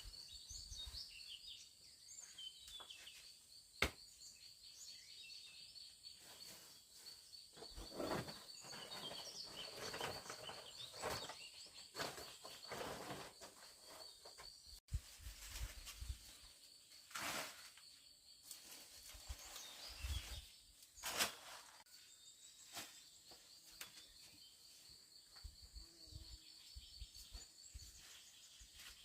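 Insects trilling steadily, a high, evenly pulsing note, with scattered rustles and knocks from handling or footsteps; the trill fades after a break about halfway through and returns later.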